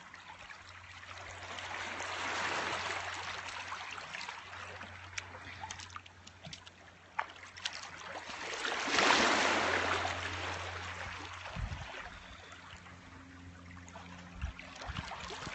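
Shallow water washing and trickling over rocks, with small splashes. It swells about two seconds in and is loudest at around nine seconds.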